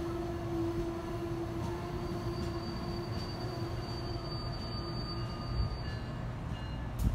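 Amtrak Amfleet passenger cars rolling past a station platform as the train pulls out, with a steady rumble and a steady low tone from the train that fades away about halfway through. A single sharp click comes right at the end.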